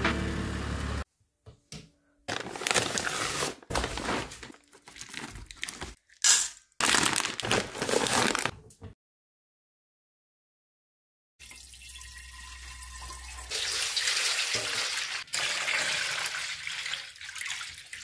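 Water running and pouring into a steel bowl, a steady splashing that grows stronger partway through. Before it come scattered, stop-start handling noises and a couple of seconds of silence.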